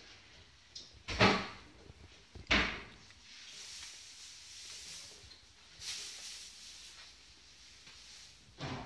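Two loud, short thumps about a second and a half apart, followed by a few seconds of softer rustling and a weaker thump near the end.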